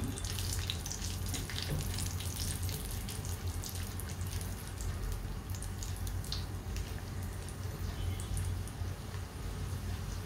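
Cashew nuts sizzling and crackling in hot ghee in a nonstick pan as they roast toward light brown: a steady hiss with fine spitting crackles.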